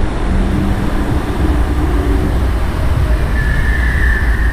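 Artificial waterfall pouring through an opening in a rock ceiling into a shallow pool: a loud, steady rushing roar, heaviest in the low end. A faint high tone joins it about three seconds in.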